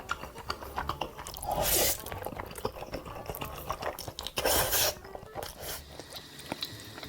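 Close-miked eating: crunchy bites and chewing, with many small wet clicks and two louder stretches of crunching, about a second and a half in and again near the middle.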